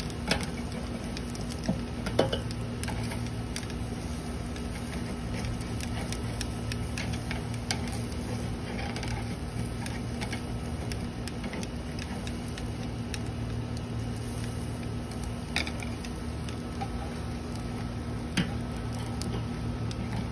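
Steady low hum of an outdoor central air-conditioner condenser running, with a few light clicks and taps scattered through it.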